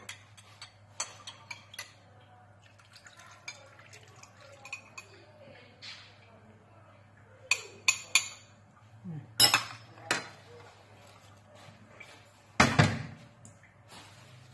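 Metal spoon clinking and scraping against a ceramic bowl as tomato paste is stirred into water, then the sauce poured out over a baking dish, with scattered clinks and one louder clatter near the end.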